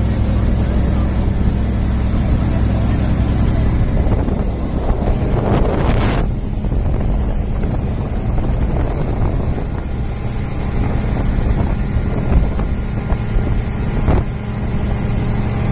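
Motorboat engine running steadily at speed, with wind buffeting the microphone and the rush of water from the wake. A louder rush of wind and water comes about six seconds in.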